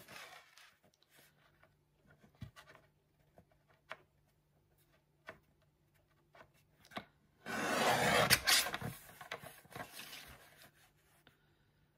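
Paper being shifted and tapped into place on a sliding paper trimmer. About seven and a half seconds in, the trimmer's cutter is drawn along its rail through the paper: a rasping, scraping cut of about a second and a half.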